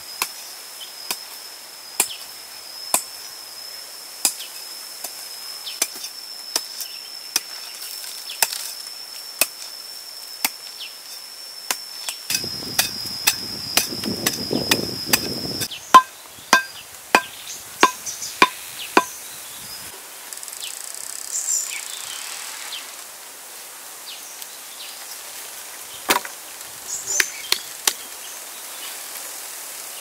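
Sharp chopping strikes, about one a second, over an insect's steady high buzz. A little before midway there is a rustling scrape, and the buzz stops. Then comes a quick run of ringing strikes, about three a second, and a few scattered strikes near the end.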